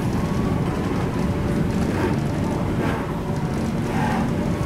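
Interior running noise of an MTR Tung Chung Line K-train: a steady, even rumble of wheels on track and running gear, with a faint steady hum above it.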